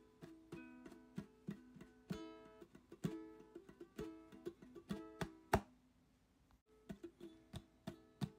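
Background music: a plucked guitar picking a light tune, which breaks off briefly about six seconds in and then starts again.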